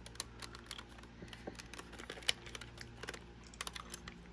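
Irregular light clicks and taps of a Sony WM-FX28 cassette Walkman's plastic casing being handled and turned over in the hands, over a faint steady hum.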